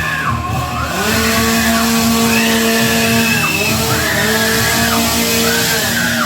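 Loud music with long held notes under high, squealing lines that bend up and down every second or so.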